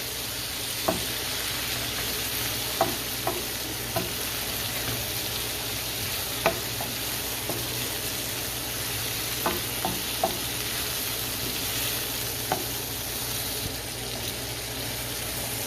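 Shrimp, garlic and vegetables sizzling steadily in a hot pot, with scattered sharp clicks of a utensil against the pot as they are stirred. The shrimp are cooking until they turn pink.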